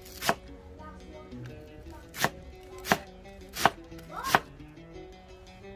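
Knife chopping food on a board: five sharp strokes, one near the start and then four in a row about 0.7 s apart. A short rising tone comes just before the last stroke.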